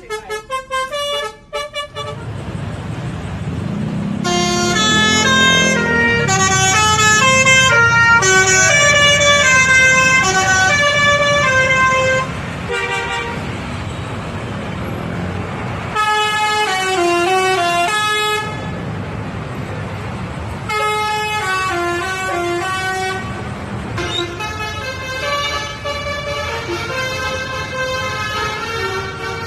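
Indonesian bus 'basuri' telolet horns playing melodic tunes of quick stepped notes, several tunes one after another with short breaks, over the low steady running of a bus engine.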